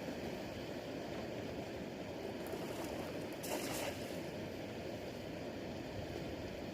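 Floodwater rushing steadily over a road in a strong current, with a brief sharper splash-like burst about halfway through.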